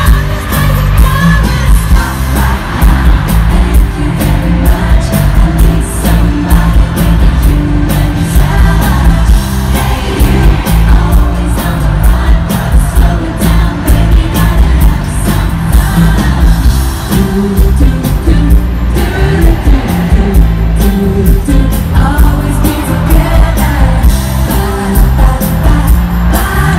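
Live pop music: singing over a steady driving beat with heavy bass.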